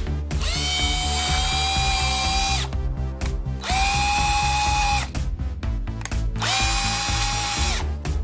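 BWS cordless drill motor, repaired and running on an 18V Li-ion battery pack, spun up three times in short runs. Each run rises to a steady high whine and winds down when the trigger is released.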